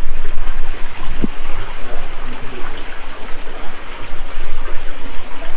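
Small rocky creek running steadily, with one short low thump about a second in.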